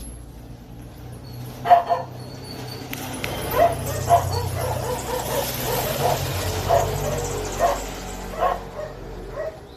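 A dog barking repeatedly in short, sharp barks, starting about two seconds in and going on, with gaps, until near the end.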